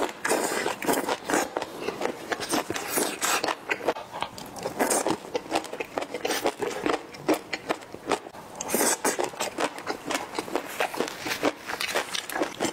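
Close-miked wet mouth sounds of a man eating spicy braised duck, intestines and green chilies: chewing and lip smacking, a dense run of irregular clicks with louder flurries at the start and about 3, 5 and 9 seconds in.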